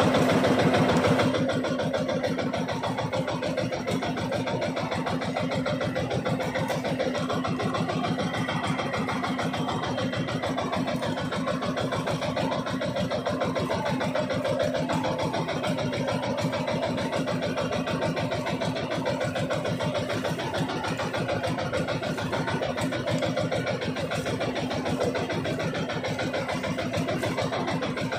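Outrigger fishing boat's engine running steadily at an even pace.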